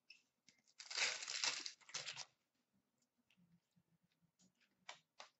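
Upper Deck hockey card pack's foil wrapper crinkling as it is torn open, for about a second and a half. A couple of short clicks follow near the end as the cards are handled.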